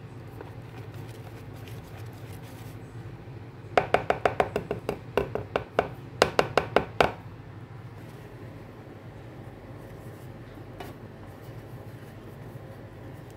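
Wire whisk clacking against the side of a plastic mixing bowl while beating cake batter: three quick runs of sharp clicks, several a second, over about three seconds, above a steady low hum.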